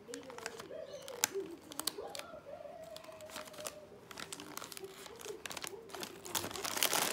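Metallic foil wrapping paper crinkling and rustling as a baby's hands grab and pull at a wrapped present, in quick irregular crackles that get louder near the end. A faint wavering tone runs underneath.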